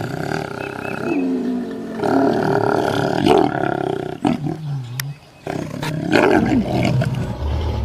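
Lion roaring in several long, rough calls, with a short break about five seconds in.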